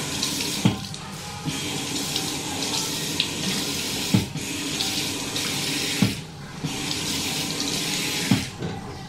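Water running from a tap into a sink while a small child's hands are washed and rinsed under the stream. The steady splashing is broken about four times by a short knock and a brief drop in the sound as the hands move in and out of the water.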